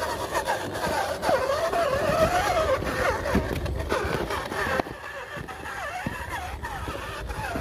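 RGT EX86100 V2 RC crawler's electric motor and gearbox whining, the pitch rising and falling with the throttle as it crawls over loose rocks. Scattered clicks of tyres and chassis on stones come through, and it gets quieter about five seconds in.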